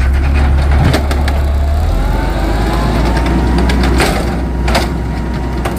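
Automated side-loader garbage truck idling with a steady low engine drone while its hydraulic arm grabs and lifts a wheelie bin. A rising whine starts about two seconds in, and a couple of sharp clanks come after about four seconds.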